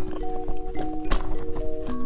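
Background music of overlapping held notes, with a few short sharp clicks over it, the loudest just after a second in.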